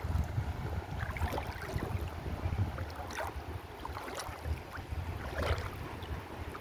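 River water splashing and lapping, with short splashes scattered through, under a low gusting rumble of wind on the microphone.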